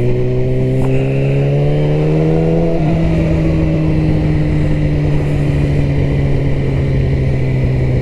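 Yamaha R6 sport bike's inline-four engine running in gear at town speed. Its pitch rises slowly, drops abruptly about three seconds in, then holds nearly steady, sagging slightly.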